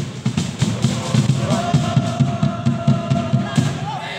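A large group chanting and singing together to a bass drum beaten about four times a second; the drum stops near the end while the chanting goes on.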